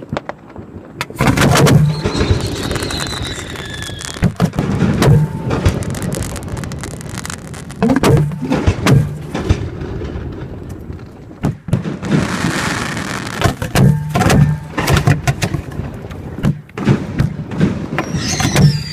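Fireworks shot from mortar tubes at close range: a rapid run of launch thumps and bursts with crackling. A high whistle slides down about two seconds in and again near the end.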